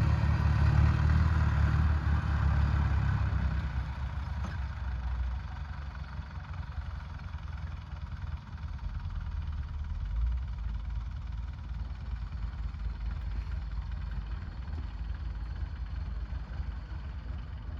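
A heavy vehicle's engine running steadily, louder for the first few seconds and then settling to a lower, even level.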